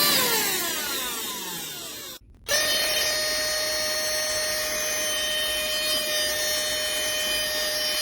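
Cordless handheld mini vacuum's motor whine falling in pitch and dying away as it spins down. It stops for a moment about two seconds in, then switches back on abruptly and runs with a steady whine.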